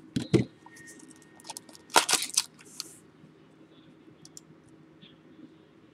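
Foil trading-card pack being torn open and crinkled, with sharp crackles early on and the loudest burst of tearing and crinkling about two seconds in, then faint clicks of the cards being handled.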